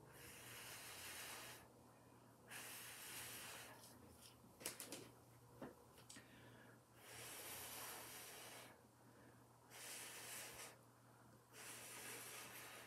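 A person blowing hard through pursed lips onto wet acrylic pouring paint to push it across the panel, in about six blows of one to two seconds each with short pauses between. A few small clicks come in the middle.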